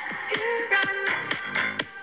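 Background music: a song with a steady beat and a melody, in a gap between sung lines.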